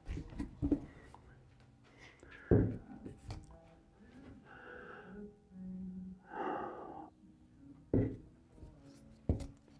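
Wooden picture frame being lifted off a workbench and handled, knocking and bumping a few times, loudest about two and a half seconds in, with short breath-like sounds in between.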